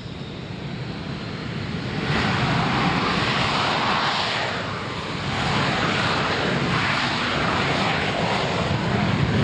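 Hawker Hunter's jet engine running at high power as the aircraft rolls down the runway, most likely on its takeoff run. The noise swells to full loudness about two seconds in, eases briefly around the middle, then holds loud and steady.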